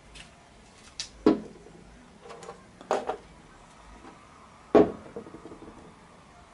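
Steel lathe tailstock quill and tailstock body being handled and set down on a workbench: a handful of sharp metal knocks and clunks, some with a brief ring. The loudest comes just before five seconds in, as the quill is stood on end.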